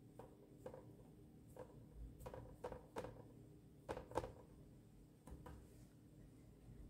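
Faint handling sounds of watercolour painting: about a dozen soft, short taps and brushing sounds from the brush and hand working at the paper. The loudest comes a little after four seconds in.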